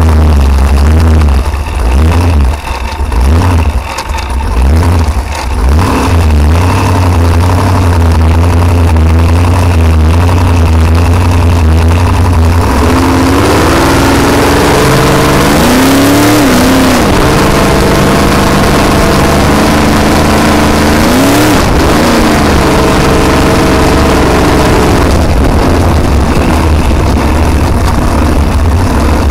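Supercharged Ford engine of a blown flat-bottom boat running at low speed. About halfway through it is opened up: the pitch climbs twice and then settles at a steady cruise, with a rush of water and wind that comes in as the speed rises.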